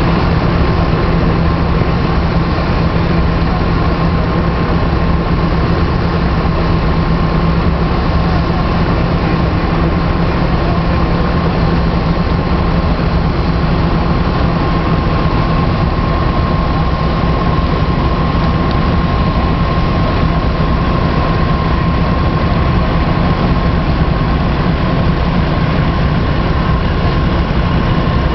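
Vintage belt-driven threshing machines running at working speed, the threshing drum giving a steady high hum over the low, even drone of the tractor engines driving them. The sound holds steady throughout.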